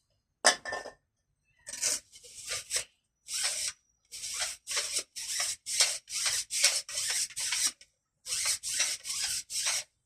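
Rubbing or scraping strokes repeated by hand, about two to three a second, in several runs with short pauses between them.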